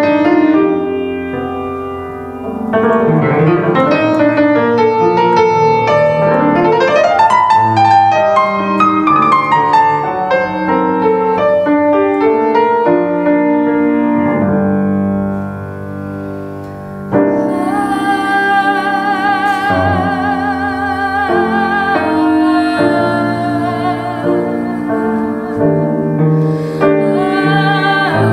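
Grand piano playing a flowing, arpeggiated melody for about the first fifteen seconds. After a short dip in level, a woman's voice comes in, singing long notes with vibrato over the piano.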